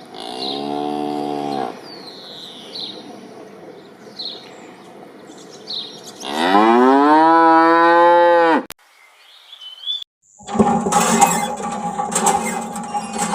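A cow mooing twice: a short moo at the start and a louder, longer one past the middle, with small bird chirps between them. Music starts near the end.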